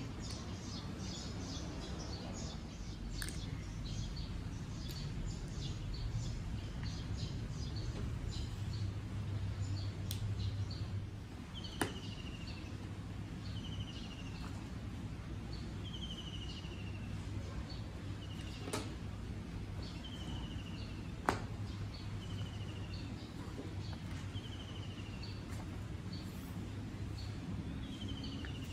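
Outdoor birdsong over a steady low background hum. A flurry of short high chirps comes first, then a short falling call repeats about every two seconds. A few sharp clicks stand out.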